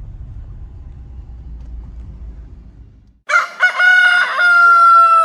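Low, steady rumble of a car's cabin on the move, then an abrupt cut to a loud rooster crowing: a few short notes and then one long held note that falls slightly in pitch.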